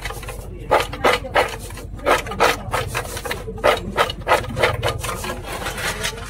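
Freshly fried french fries being shaken back and forth on a paper-lined stainless steel tray, a rasping, scraping rattle of about three strokes a second. Near the end they are tipped into a second steel tray.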